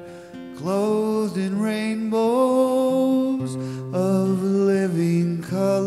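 A man singing a slow melody with long held notes to his own strummed acoustic guitar. The guitar plays alone for about half a second before the voice comes in.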